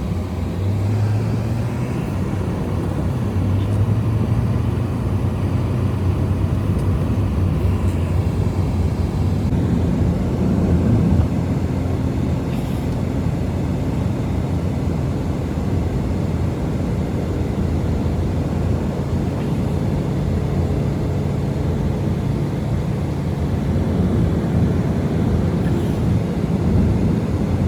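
Strong blizzard wind blowing in a steady, heavy low rumble.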